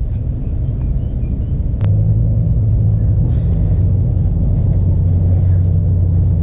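Steady low rumble that steps up in level after a click about two seconds in, then holds even.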